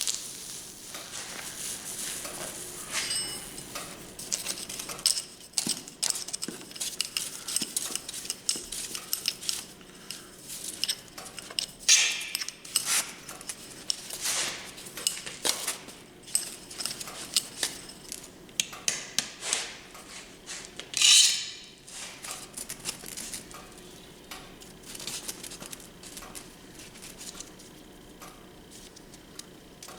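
Small pieces of forged steel clinking and scraping against each other and hard surfaces as they are handled, many light irregular clinks with a few louder scrapes about twelve seconds in and again about twenty-one seconds in.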